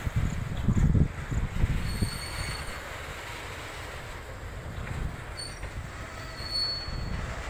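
Freight train of oil tank wagons rolling along the track behind a WAG12 electric locomotive: a low rumble, heavier for the first two seconds, then steadier. A few brief high squeals come through about two seconds in and again near the end.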